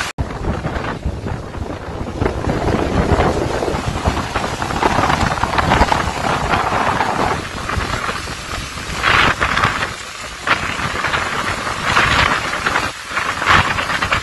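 Tropical-storm wind and driving rain, the gusts buffeting the microphone. The wind surges in loud gusts, strongest about nine, twelve and thirteen and a half seconds in.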